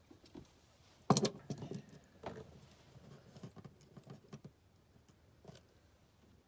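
Small plastic parts of a hook-up inlet and its surround being handled and pressed against a wooden panel. There is a sharp knock about a second in, then a run of light clicks and taps, with one last tap near the end.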